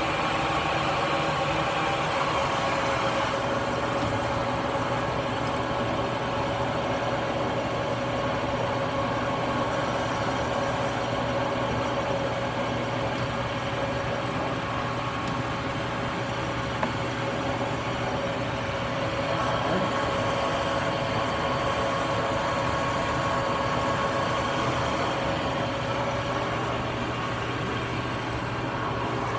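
Turnmaster engine lathe running steadily under power, its spindle turning at about 670 rpm with an even hum and a steady whine from the headstock gearing. It runs quietly, which the owner takes as a sign of good spindle bearings.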